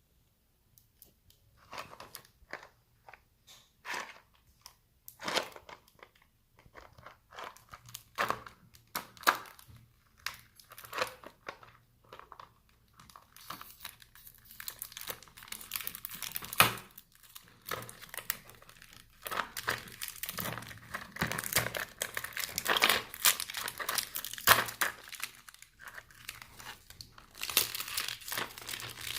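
Hands handling and opening a pack of chewing gum: scattered clicks and rustles of the packaging at first, then about halfway through more continuous crinkling and tearing as the wrapping is torn open.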